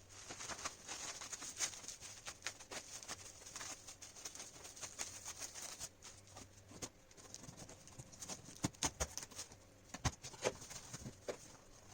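A cardboard shipping box and its packaging being handled and opened: faint irregular rustling, scraping and small clicks, with a few sharper knocks about eight to ten seconds in.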